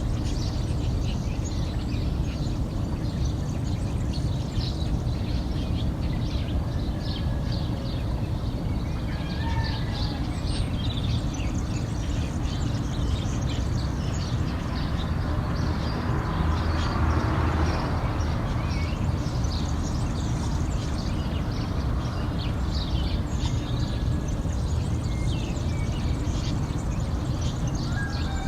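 Many small birds chirping and twittering over a steady low rumble, with a broad swell of noise about halfway through.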